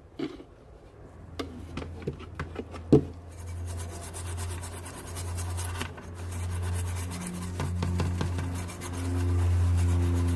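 A small brush scrubbing acetone across a circuit board to clean off the leftover residue from soldering. A few light taps and clicks come first, then from about three seconds in, fast continuous scrubbing strokes over a low hum.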